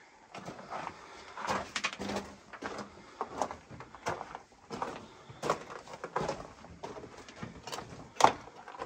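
Footsteps crunching on loose rock and gravel in an underground mine drift, irregular at about two steps a second, with a sharper knock near the end.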